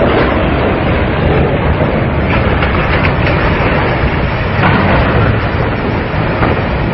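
Loud, steady rushing noise with a low rumble underneath.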